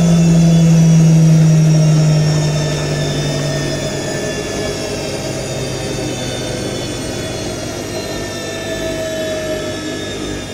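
IKEA RENLIG IWM60 washing machine winding down from a spin: the motor whine falls steadily in pitch, and the loud low hum drops away after about three seconds as the drum coasts down. The owner notes roughness from the motor bearings.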